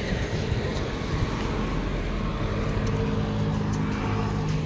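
Roadside traffic noise, with a motor vehicle's engine joining in at a steady pitch from a little past halfway and cutting out near the end.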